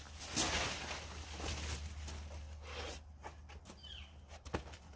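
Plastic stretch wrap rustling and crinkling as it is pulled off a packaged laser engraving machine, for about three seconds. Then quieter, with a short high chirp and a single light tap near the end.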